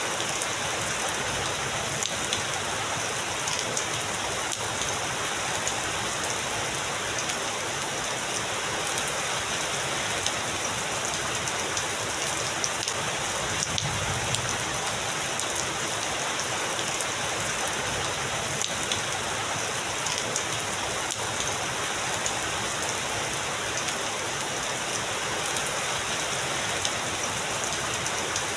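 Heavy rain falling steadily, a constant even hiss with many sharp ticks of individual drops striking close by.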